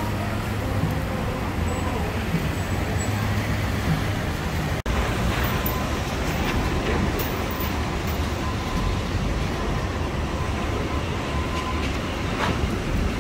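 Steady city street traffic: a low rumble of engines and tyres on wet pavement. The sound drops out for an instant about five seconds in.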